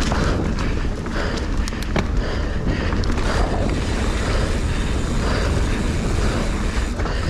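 Mountain bike descending a dirt trail at speed, recorded on an action camera: steady wind buffeting the microphone and tyres rumbling over the ground, with frequent rattles and knocks from the bike over rough terrain.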